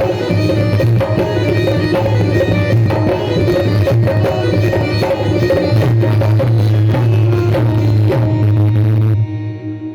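Indian-style music played on a Roland Fantom-X6 keyboard workstation: a tabla-style percussion rhythm with a melody over a steady bass. It stops abruptly about nine seconds in, leaving a ringing chord dying away.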